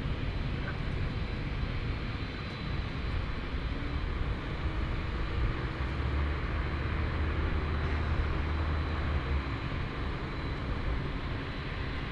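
Steady engine noise: a low rumble with a thin, faint high-pitched whine, the rumble swelling about six seconds in and easing again near nine seconds.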